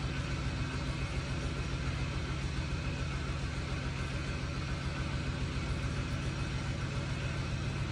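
Steady low hum under an even background hiss, unchanging throughout, with no distinct clicks or knocks.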